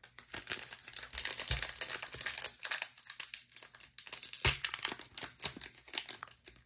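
Foil wrappers of 2023 Panini Score football card packs crinkling and crackling as they are handled, with a sharper, louder crackle about four and a half seconds in.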